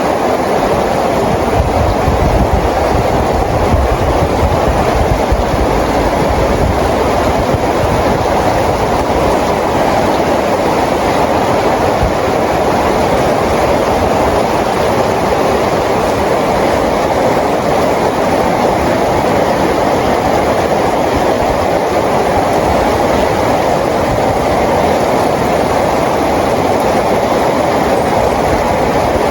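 Rain falling steadily, an even wash of noise with no breaks or changes.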